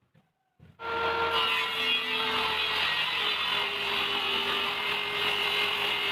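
A power tool starts up about a second in and runs steadily, working wood, with a motor tone under a dense rasping noise. A few faint knocks come just before it.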